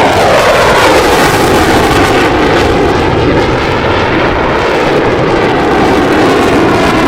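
Fighter jet engine noise, loud and steady, with a falling whine in the first second.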